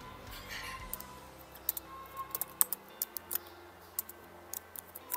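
Computer keyboard typing: a run of irregular, quick key clicks.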